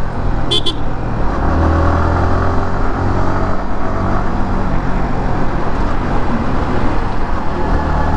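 Yamaha R15M's 155 cc single-cylinder engine running at a steady pace under riding, with road and wind noise. A short high double pip about half a second in.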